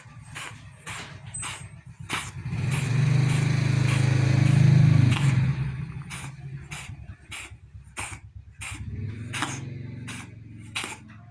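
An animal's low, drawn-out vocal sound, loudest from about two to six seconds in and returning near the end, over a string of short clicks.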